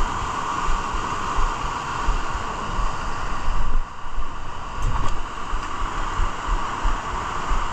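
Rocky mountain stream rushing over boulders in small rapids, a steady hiss of white water, with wind buffeting the microphone in low bumps. The rush dips briefly about halfway through.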